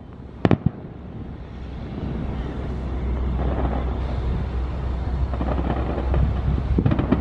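Fireworks over a steady low outdoor rumble of traffic and wind: two or three sharp cracks about half a second in, then faint scattered pops and crackles later on.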